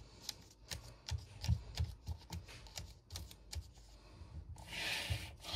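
Paper pages being handled in a disc-bound planner: a scattering of small clicks and taps, then a brief paper swish about five seconds in.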